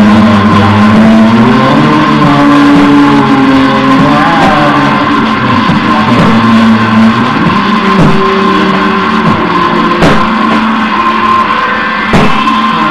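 Loud experimental noise music: layered droning, distorted tones with a steady high whine over lower pitches that slide up and down, and a couple of sharp crackles in the last few seconds.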